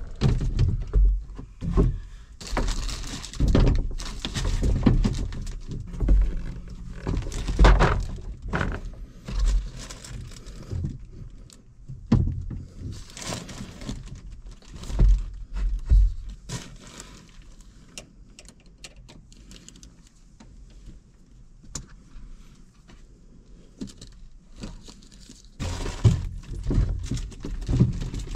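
Irregular thumps, knocks and rattles of a new tractor seat being lifted and worked onto its metal mounting base, busiest at first, quieter in the middle and picking up again near the end.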